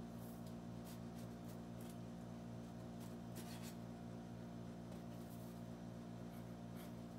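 A blade slitting and scraping the packing tape on a cardboard box: short, scratchy rasps at irregular intervals, the longest about three and a half seconds in. A steady low hum runs underneath.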